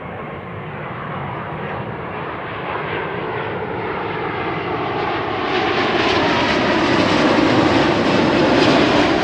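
American Airlines jet airliner passing low overhead on its landing approach, its engine noise building steadily to a loud peak near the end. Its whine slowly drops in pitch as it goes by.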